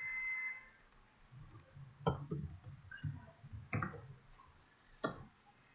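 Typing on a computer keyboard: a handful of faint, separate key clicks at irregular intervals.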